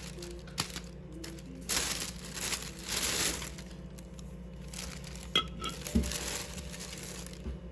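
Plastic grocery bags crinkling and rustling as groceries are handled, with a few light clinks and knocks of glass and hard items being set down about two-thirds of the way through.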